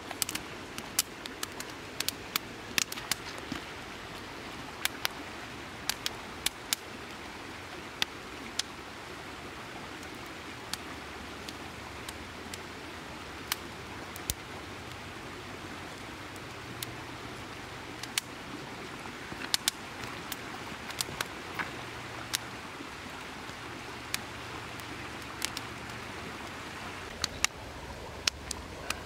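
Campfire crackling, with sharp wood pops coming irregularly throughout, over the steady rush of a creek.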